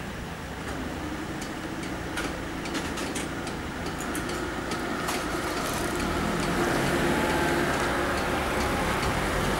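Road traffic at a railway level crossing: waiting car engines running, then growing louder about halfway through as the barriers lift and vehicles pull away, with scattered sharp clicks in the first half.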